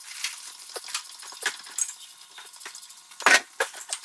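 Hand tools and metal parts clicking and clinking during work on a heavy truck's axle and brakes, with one sharp metallic knock about three seconds in. The sound is thin, with little low end.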